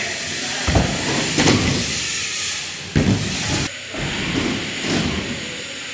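BMX bike riding a ramp: a steady hiss of tyres rolling on the ramp surface, broken by sharp thuds from the bike hitting the ramp about a second in, again half a second later, and at about three seconds.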